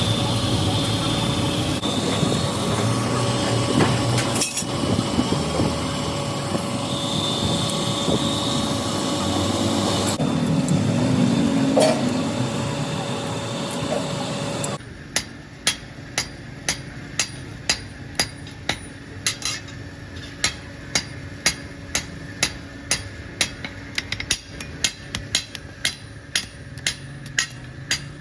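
Steady workshop machine noise with a faint held whine, cutting off about halfway through. After that, a hammer beats steadily on metal in forging a sickle blade, about two sharp ringing blows a second.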